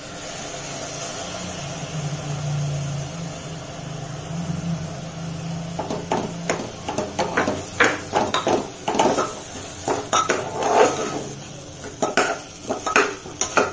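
A metal spoon stirring and scraping through a dal-and-vegetable mix inside an aluminium pressure cooker, with irregular clinks and scrapes against the pot. For the first six seconds, before the stirring, there is only a steady hiss.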